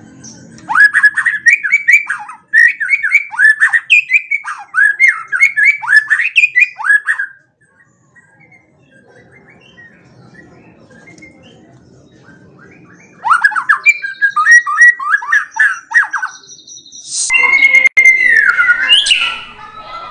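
White-rumped shama singing runs of short, harsh, downward-sweeping notes, about four a second. Two runs of several seconds are separated by a pause of about six seconds. Near the end comes a different phrase with a clear sliding whistled note.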